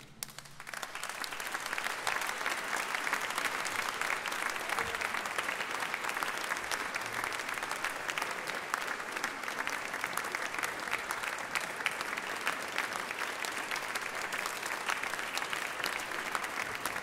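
Audience applauding, building over the first two seconds and then holding steady as dense clapping.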